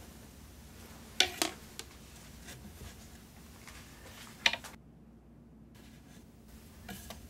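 Wooden rods of a small frame loom being handled against the wooden frame: a few sharp wooden clicks, two close together about a second in and another past the middle, over quiet room tone.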